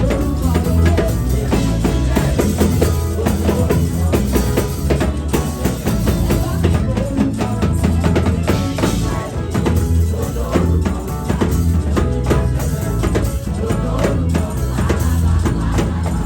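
Live church praise band playing upbeat dance music, with a drum kit, tambourine and heavy bass keeping a steady, driving beat.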